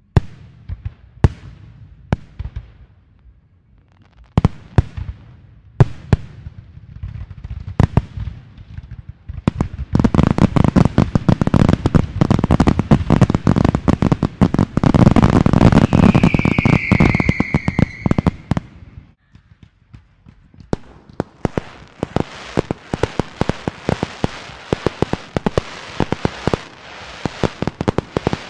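New Year's fireworks and firecrackers: scattered single bangs at first, then from about ten seconds in a dense, loud barrage of rapid bangs and crackling, with one whistle falling in pitch about halfway through. After a brief lull near the end it resumes as steady crackling.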